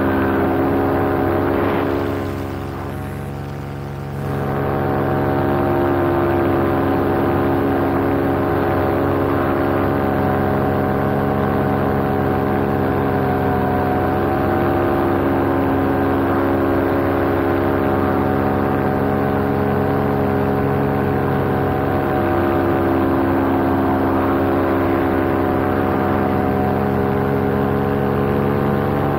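Paramotor's two-stroke engine and propeller running steadily at flight power. The throttle is eased off briefly about two seconds in, then opened up again to a steady drone.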